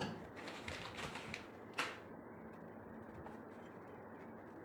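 Faint handling noise: light clicks and rustles of wires and small parts being handled, with one sharper click about two seconds in, over a faint steady hiss.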